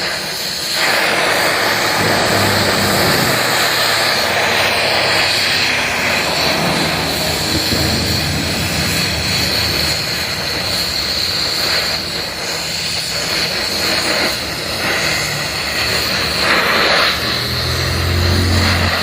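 A power tool running steadily, a constant high whine over a dense hiss.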